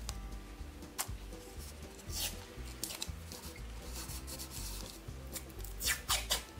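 Masking tape being pulled off the roll in short rips and rubbed down onto the rim of a metal paint can: one rip about a second in, another about two seconds in, and a quick run of rips near the end. Soft background music plays underneath.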